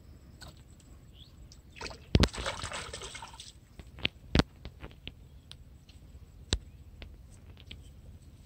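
A sharp snap and a burst of splashing about two seconds in as a hooked small fish is pulled from the pond water on a fishing rod, followed by a few separate sharp clicks and taps.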